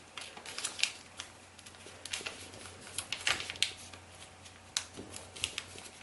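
Thin duo-colour kami origami paper crackling and rustling under the fingers as it is folded and creased by hand, in irregular short crackles, the loudest a little past three seconds in.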